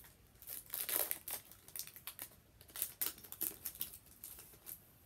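Foil wrapper of a Pokémon Trading Card Game Sun & Moon booster pack crinkling and crackling in the hands as it is torn open, in a run of sharp crackles, loudest about a second in.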